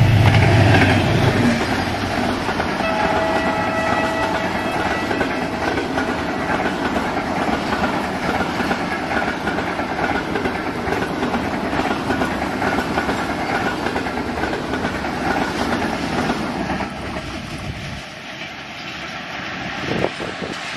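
Pakistan Railways diesel locomotive hauling a passenger express past close by. It is loudest at the start as the locomotive goes by, then the coaches' wheels clatter steadily on the rails, with a brief horn-like chord about three seconds in. The noise drops off near the end as the last coach passes and the train recedes.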